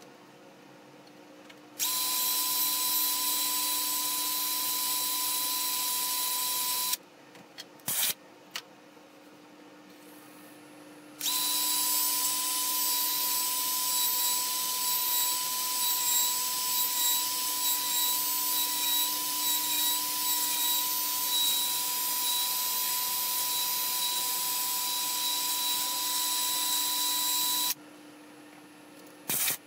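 Cordless drill with a sanding pad power-sanding a black walnut bowl, its motor running with a steady whine. There is a short run of about five seconds, a few clicks, then a long run of about sixteen seconds.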